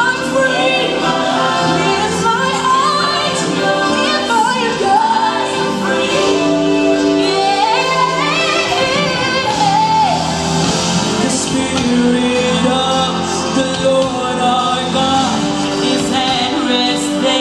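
Gospel song with singing: a sung melody gliding up and down over sustained backing notes, playing on without a break for the dance.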